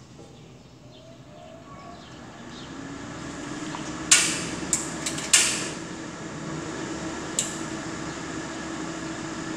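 A range hood fan spinning up to a steady hum, then a gas stove's igniter clicking four times in quick succession as a burner is lit, with one more click a couple of seconds later.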